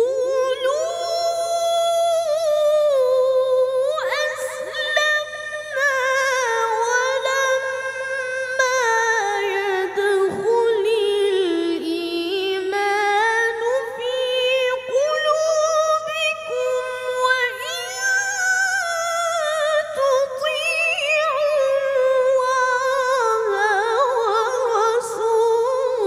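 A boy qari reciting the Quran in melodic tilawah style in a high voice: long, ornamented phrases whose pitch bends and trills are held for several seconds each.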